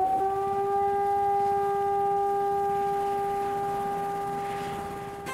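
Air-raid siren holding one steady wailing pitch, slowly growing fainter near the end.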